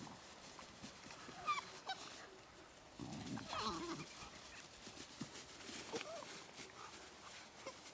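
Cane Corso puppies play-wrestling, giving faint short, high yips about a second in and a louder, longer yelp around three seconds in, with another short call near six seconds.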